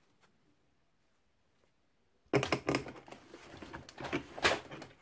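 Bundles of thin wooden planking strips being handled and pulled out of a cardboard kit box: after about two seconds of near quiet, a run of rustles and light wooden knocks and clicks, with one sharper knock near the end.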